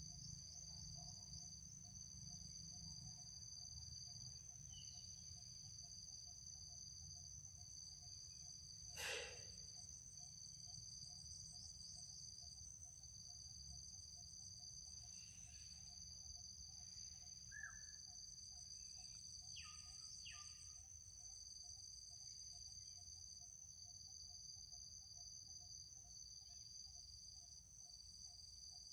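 Faint steady chorus of crickets and other insects, a continuous high shrill drone, over a low rumble. About nine seconds in a single short, sharp call sweeps quickly downward in pitch, and a few faint chirps follow later.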